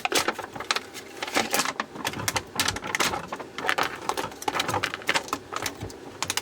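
Rapid, irregular plastic clicks and scraping as a lithium battery pack's casing is worked open by hand.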